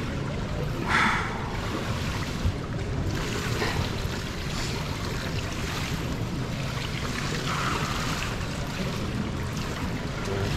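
Indoor swimming pool ambience: a steady wash of water noise echoing in the hall, with a brief louder sound about a second in.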